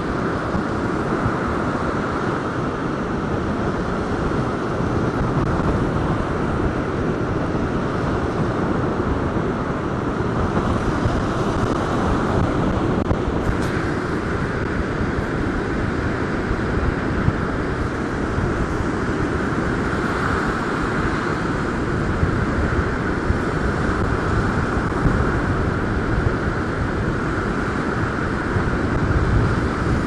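Strong gale-force wind buffeting the microphone in a steady low rumble, over stormy sea surf breaking and washing up a sandy beach.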